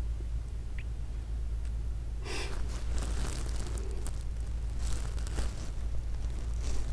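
A woman crying, with short sharp breaths and sniffs starting about two seconds in, over a steady low hum.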